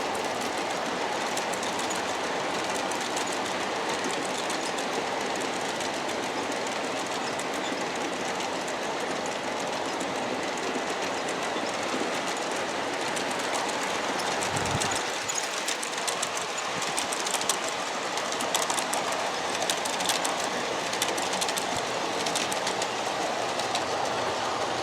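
G-scale (1:29) model coal train rolling along the track, a steady rolling noise of many hopper-car wheels, with clicks over the rail joints becoming more distinct about two-thirds of the way through.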